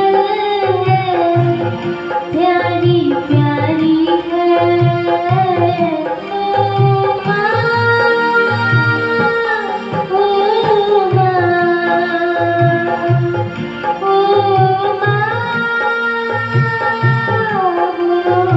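A girl singing a Hindi song into a microphone, with several long held notes, over a steady rhythmic drum accompaniment.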